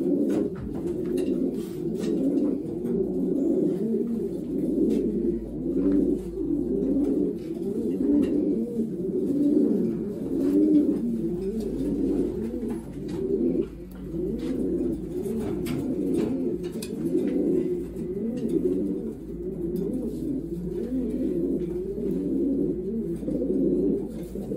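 A loft full of racing pigeons cooing, many overlapping coos with no break, with a faint click now and then.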